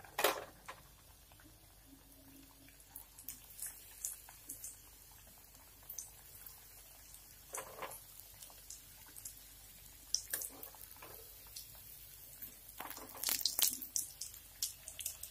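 Hot oil crackling and popping in scattered bursts as breaded egg fingers deep-fry in a kadai. A metal slotted spoon knocks against the pan just after the start and several times near the end.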